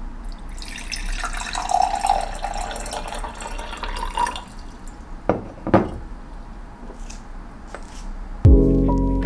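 Water poured from a glass carafe into a drinking glass, a splashing stream that rises slightly in pitch as the glass fills. It stops after about four seconds, and two light knocks of glass on the counter follow. Music with piano-like notes begins near the end.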